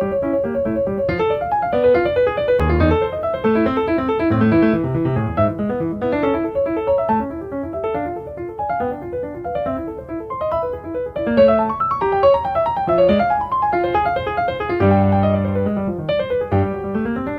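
Background piano music: a flowing run of notes over chords, with one held chord near the end.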